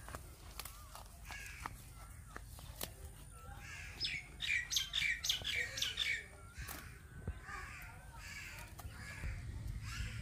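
Birds chirping in the background, with a loud run of about eight harsh, crow-like cawing calls about four seconds in.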